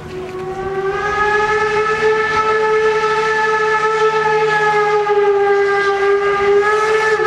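A train's whistle blown in one long, steady blast, rising a little in pitch as it sounds and then held on a single note.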